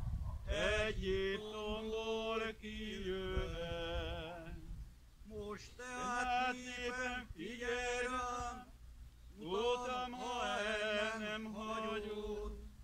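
A man's voice chanting unaccompanied: a slow Catholic funeral chant sung in long held notes, phrase by phrase, with short pauses for breath between the phrases.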